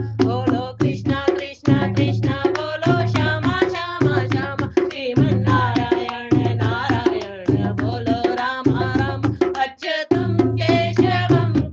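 Hindi devotional bhajan music: a steady tabla-style hand-drum rhythm under a wavering melody line.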